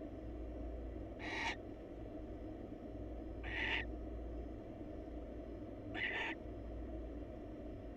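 Barn owl giving three short, harsh hissing screeches, about two and a half seconds apart, over a steady low hum.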